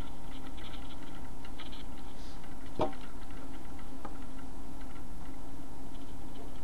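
A steady low hum with light, scattered ticking, and one sharp click a little under three seconds in, followed by a weaker click about a second later.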